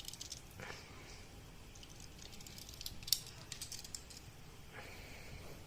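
Crisp clicking and crackling of toy-car packaging being handled, in short clusters of small clicks with one sharper click about three seconds in.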